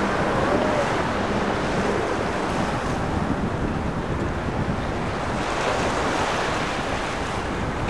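Wind noise on the microphone over breaking surf and waves, a steady rushing. A faint steady hum from the boat's twin Yamaha outboard motors is heard underneath for the first couple of seconds.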